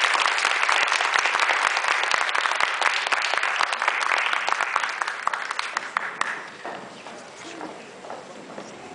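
Audience applauding: dense clapping that stays loud for about six seconds, then fades to scattered claps.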